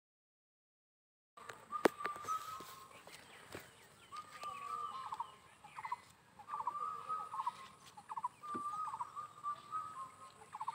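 After a brief silence, a bird calls over and over, faintly. Each call is a held note that ends in a quick rattling trill, repeating every couple of seconds. There is a single sharp click about two seconds in.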